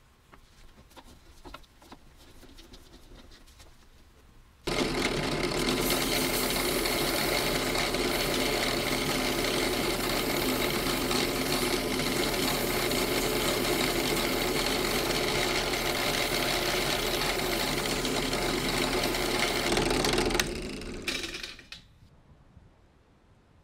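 Benchtop drill press switched on about five seconds in and running steadily, spinning a wooden handle that is being sanded with sandpaper held against it. Near the end the drill press is switched off and winds down.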